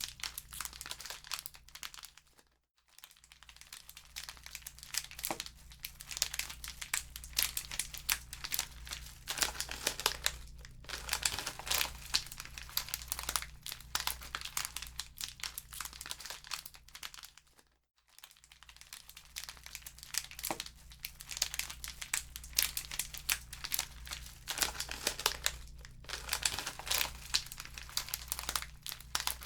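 Wood fire crackling in a fireplace: dense, irregular pops and snaps over a low steady hum. The sound dips almost to silence twice, briefly: a few seconds in and again a little past the middle.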